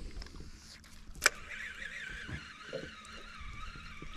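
Baitcaster fishing reel: a sharp click about a second in, then a fluttering whir as the line is wound in, over light wind and water lapping.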